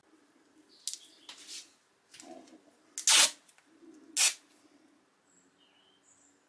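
Duct tape being pulled off the roll in short rips, the two loudest about a second apart, with handling noises in between. Faint bird chirps near the end.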